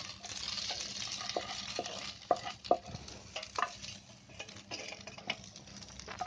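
Wooden spatula scraping cooked sweet potato strips out of a hot nonstick pan onto a stainless steel plate, with a few sharp knocks of spatula on pan and a light sizzle from the pan.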